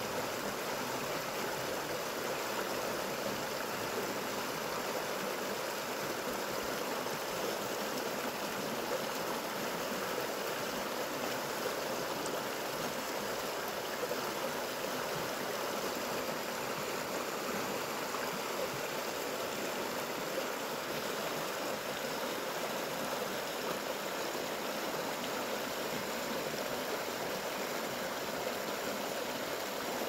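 Steady rushing noise inside an airliner cabin in flight: engine and airflow noise, even and unbroken.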